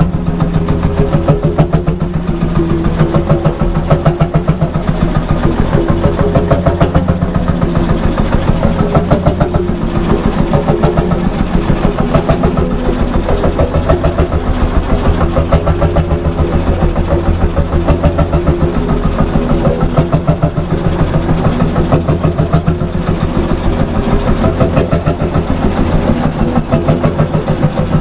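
HSCS G35 tractor's single-cylinder two-stroke hot-bulb engine idling with a steady, even, pulsing beat.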